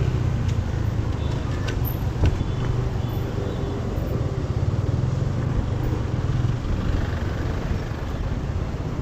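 A motorcycle's engine running as it rides slowly, with road and traffic noise around it.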